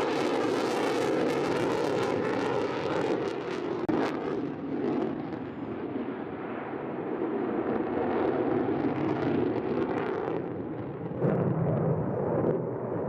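Jet aircraft engine roar, a continuous rushing noise that loses some of its hiss after a few seconds, eases in the middle and swells again near the end.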